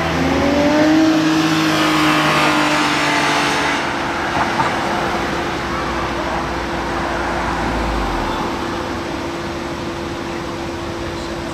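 A car passing on the street, its engine rising in pitch as it accelerates, loudest about one to three seconds in. A low road rumble trails off later, over a steady hum.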